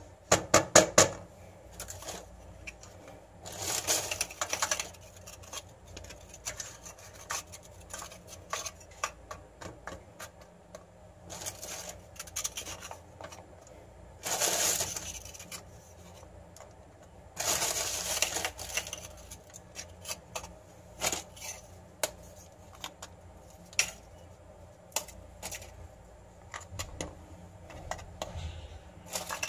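Light, scattered clicks and taps of Maria biscuits and a silicone spatula against a glass dish as a layer of biscuits is laid over creamy filling. Three short rustles come in between.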